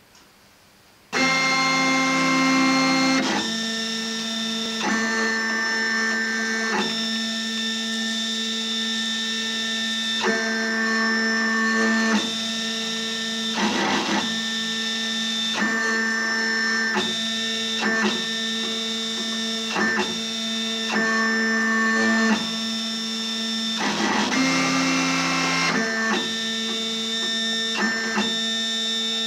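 Cutting plotter's stepper motors driving a pen across paper: a steady pitched whine that holds for a second or few along each straight stroke, then switches pitch with a short click at each change of direction. The motors start about a second in.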